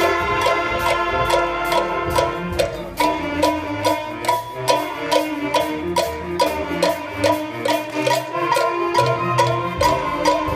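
A middle school concert band playing a tune on brass and woodwinds, with cowbells struck by hand in a steady beat over it, several strikes a second.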